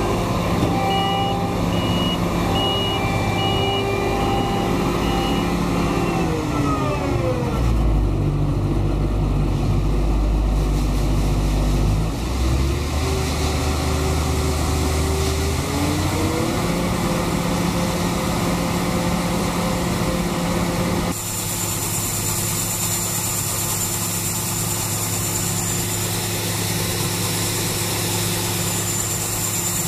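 Laverda M310 combine harvester's engine running steadily. Its pitch drops about six seconds in and climbs back around sixteen seconds. A short repeating high beep sounds over it in the first few seconds, and a steady hiss joins the engine after a sudden change about twenty seconds in.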